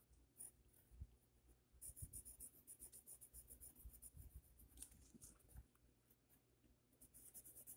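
Faint scratching of a pencil on paper: from about two seconds in, a few seconds of quick, closely spaced short strokes as a small dot is shaded in, then a few scattered strokes near the end.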